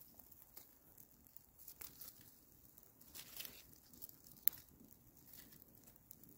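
Small fire of tinder and kindling just catching, crackling faintly with scattered snaps, one sharper snap about four and a half seconds in.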